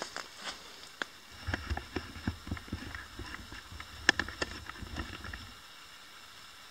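Irregular clicks, crackles and low thumps of someone moving about and handling gear on forest ground, with one sharp click about four seconds in.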